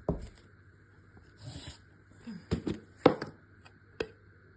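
A few sharp knocks and clinks of kitchen utensils and containers being handled while ingredients go into a bowl, with a short rustle about a second and a half in.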